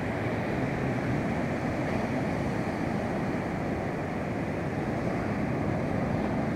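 Ocean surf breaking and washing up a sandy beach: a steady rush of noise, with wind rumbling on the microphone.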